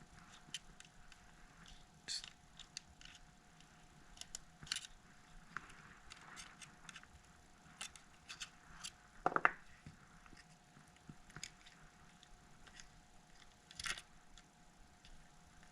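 Small repair tools lightly clicking and tapping against a phone during a battery removal: scattered faint clicks, a louder short cluster about nine seconds in, and another near the end, over a faint steady hum.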